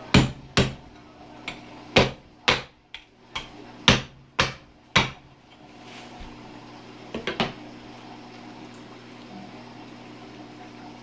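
Meat cleaver chopping into a pig's head on a plastic cutting board: about ten sharp strikes in the first five seconds, a quick few more about seven seconds in, then only a low steady hum.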